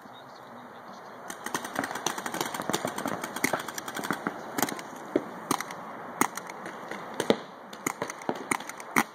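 Paintball markers firing: sharp pops that start about a second in, come thick and fast for a few seconds, then continue as scattered single shots.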